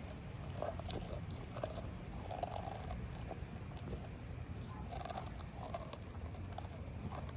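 Low, steady animal rumble, like a dog growling.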